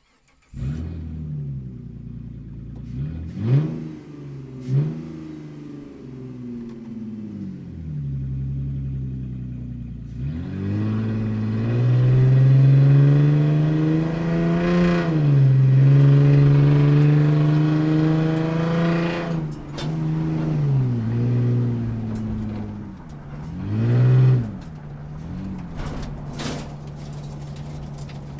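Car engine heard from inside the cabin while driving, muffled. Engine speed rises and falls repeatedly, with a few short, sharp rev peaks near the start and near the end.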